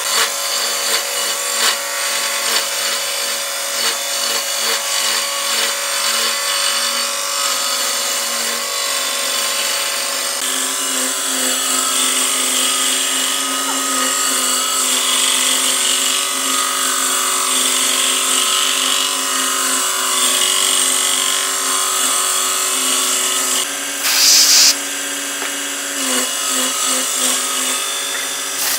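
Homemade wood lathe running, its motor giving a steady hum while a turning tool scrapes and cuts the spinning wood. A short, louder burst of cutting comes near the end.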